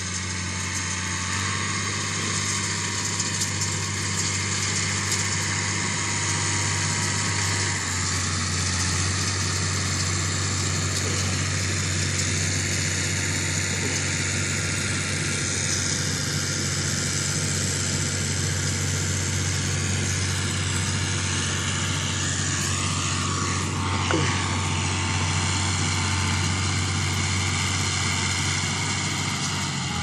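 John Deere 2840 tractor's six-cylinder diesel engine running steadily as it pulls a New Holland round baler working hay, a constant low drone with hiss over it. A single brief knock comes about 24 seconds in.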